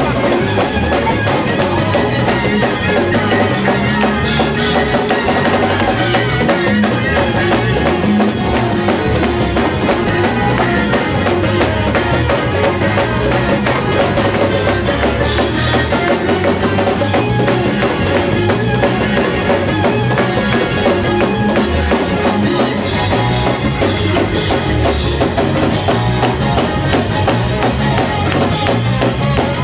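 Church band playing loud, steady gospel music, with the drum kit to the fore.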